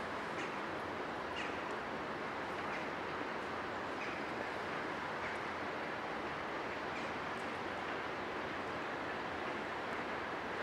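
Škoda class 163 electric locomotive drawing a passenger train slowly into the station: a steady, even running noise with a few faint, short high squeaks scattered through it.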